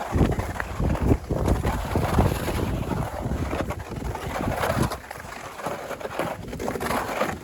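Wind buffeting the microphone over uneven crunching and scraping on snow, with irregular low thumps. It gets quieter about five seconds in.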